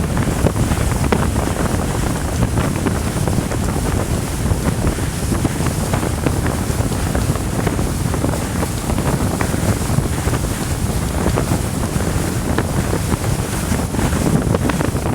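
Water rushing past the hull of the Hardy 62 motor yacht under way at about 22 knots, with wind buffeting the microphone: a loud, steady rush.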